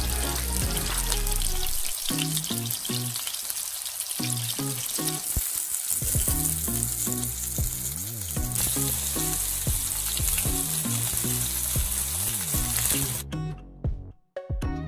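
Minced-meat patty frying in hot oil in a pan, sizzling steadily, over background music. The sizzling stops near the end, leaving only the music.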